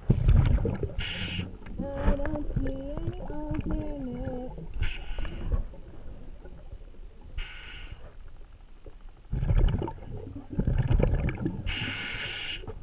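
Underwater sound picked up by a camera's microphone: low bubbling and gurgling, broken by four short hissing bursts, with a muffled wavering tone for a couple of seconds early on.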